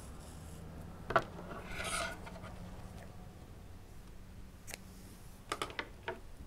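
Scissors snipping orange acrylic yarn and the rub of yarn and a crocheted piece being handled, with a short rasp and several small clicks near the end. A single sharp tap about a second in is the loudest sound.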